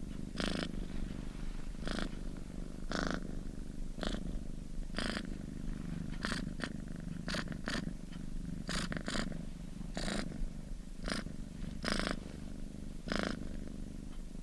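Domestic cat purring steadily: a continuous low rumble with a brief higher rasp recurring about once a second.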